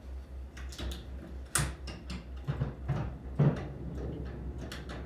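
A steady low hum under a scatter of sharp knocks and clicks, the loudest about a second and a half and three and a half seconds in.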